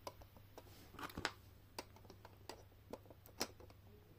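Faint, scattered clicks and taps of small plastic Schleich toy parts being handled and pushed into a plastic horse-jump stand, a few louder clicks among softer ones.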